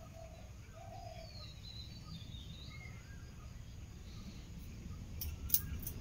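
Birds chirping and calling in short scattered phrases over a steady low background rumble, with a few sharp clicks near the end.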